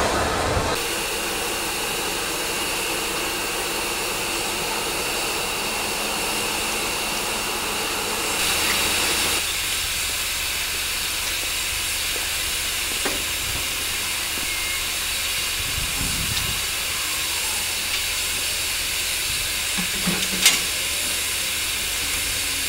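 Steam hissing steadily from rebuilt Bulleid Battle of Britain Pacific 34053 as it stands at the platform. The hiss briefly grows louder about a third of the way in, and there is a short knock near the end.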